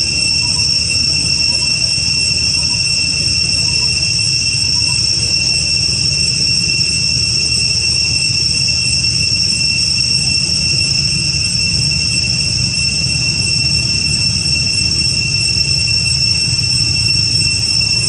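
Steady, high-pitched insect drone in two even tones, unchanging throughout, over a constant low rumble.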